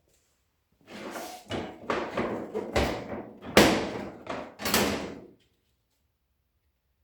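Parts of a clothes dryer being handled during cleaning: a few seconds of scraping and sliding, with two sharper knocks in the middle, then it stops.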